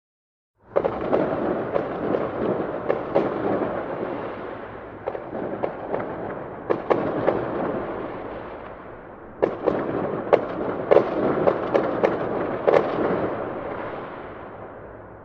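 Fireworks going off in dense volleys of crackling bursts and sharp bangs. The sound starts suddenly about a second in, eases off, comes back in a second heavy barrage, then fades near the end.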